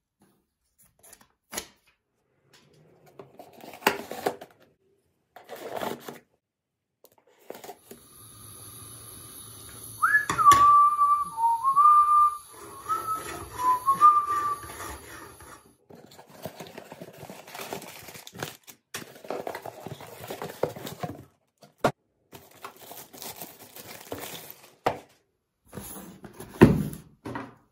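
Cardboard box being handled, with rustling, scraping and a few knocks. Partway through comes a few seconds of high whistling that glides down and then steps up and down between a few notes like a short tune. It opens with a click and is the loudest thing in the stretch.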